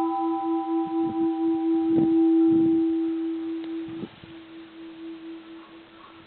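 Bronze Japanese Buddhist temple bell, a once-cracked and repaired bell, ringing on after a strike: one deep hum with a slow pulsing beat, its higher overtones dying away in the first few seconds. About four seconds in a soft knock comes and the ring drops sharply in level, the deep hum carrying on faintly.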